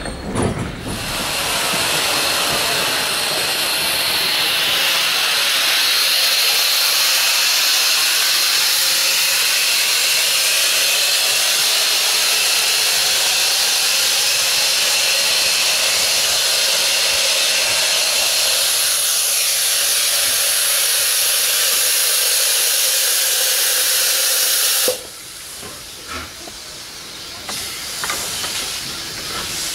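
Small steam tank locomotive venting steam in a loud, steady hiss that cuts off suddenly about 25 seconds in, leaving a quieter stretch with a few clicks.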